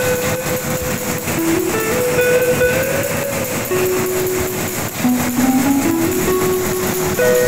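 A slow held-note melody of background music over the steady running of a meatball-forming machine turning out meatballs.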